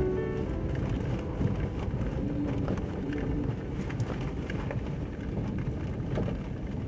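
A vehicle driving along a bumpy dirt track, with a steady engine and rolling rumble and occasional sharp knocks and rattles from the bumps.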